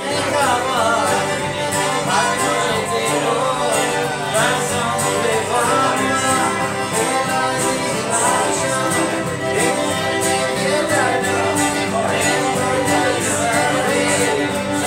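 Two fiddles playing a lively tune together over guitar accompaniment, in a bluegrass or old-time jam.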